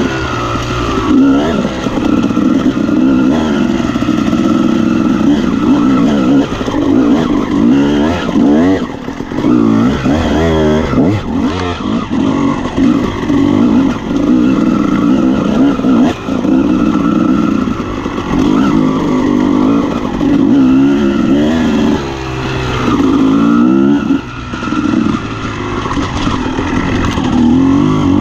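Honda CR250R's two-stroke single-cylinder engine running under load as the dirt bike is ridden, its revs rising and falling over and over with the throttle.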